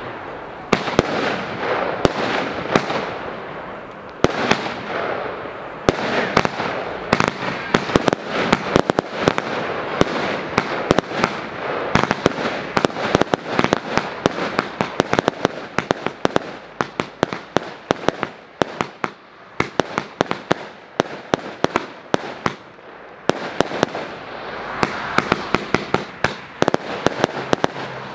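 Powerbox consumer firework battery (cake) firing: a rapid string of launch thumps and aerial bursts with hiss and crackle between them, the shots coming in quicker runs in the second half.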